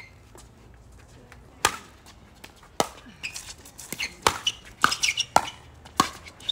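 Pickleball rally: the hard plastic ball cracking off paddles and bouncing on the court, a sharp pock every second or so at first, then coming faster in quick exchanges from about four seconds in.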